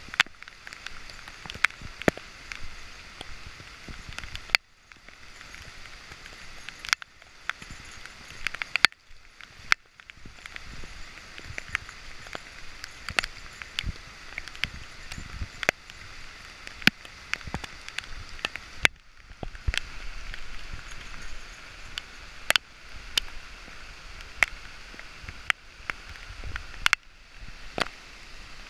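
Steady rain hissing on the forest, with frequent irregular sharp taps of raindrops striking the GoPro camera's housing.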